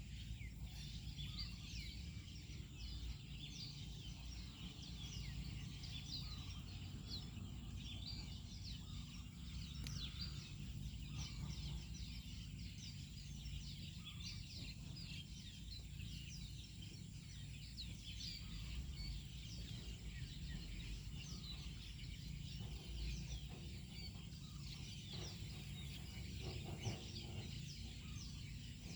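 Outdoor ambience of many small birds chirping continuously in quick short calls, over a low steady rumble and a faint steady high tone.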